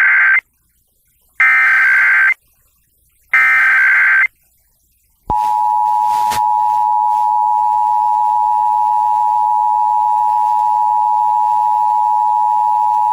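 Emergency Alert System tones received on an FM radio. The end of one short burst of SAME header data tones is followed by two more, about a second apart. About five seconds in, the steady two-tone EAS attention signal starts and holds.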